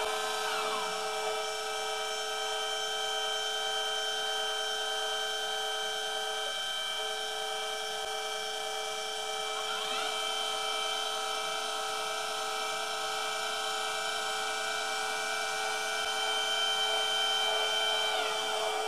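Celestron Advanced VX equatorial mount's DC servo drive motors running with a steady whine made of several tones. Brief pitch glides come near the start, about halfway through and near the end as the motors change speed.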